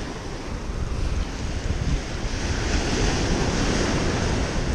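Small surf breaking and washing up a sand beach, with wind buffeting the microphone. The hiss of the wash swells about two seconds in.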